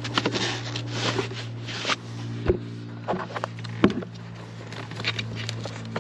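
Plastic scraping and rubbing as a heater blower resistor is twisted and worked loose by hand, followed by a few sharp plastic clicks and knocks, over a steady low hum.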